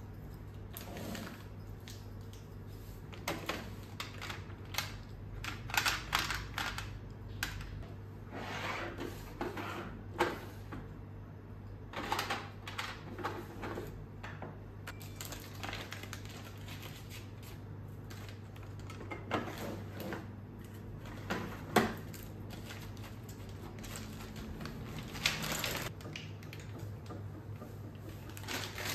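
Hard plastic items clicking, knocking and clattering irregularly as acrylic storage boxes, drawers and small bottles are handled and set down on a counter, over a steady low hum.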